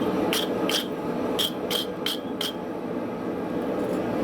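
Six hammer blows on hot iron over an anvil in the first two and a half seconds, each with a short high ring, as a forge weld is worked; a steady low rushing noise runs underneath.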